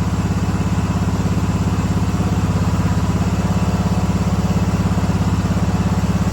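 1976 John Deere 300 garden tractor's two-cylinder Kohler engine idling steadily with an even, fast firing pulse.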